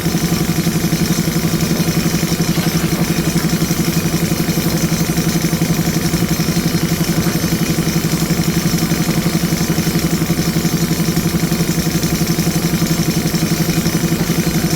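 Diesel engine of a JCB 3DX Super backhoe loader running steadily, with an even pulsing throb and no change in speed.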